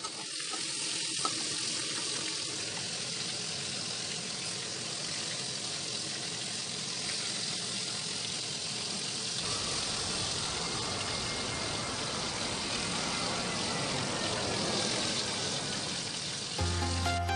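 Flour-battered chicken pieces deep-frying in hot oil in a wok, a steady sizzle throughout. Background music with a heavy bass line comes in just before the end.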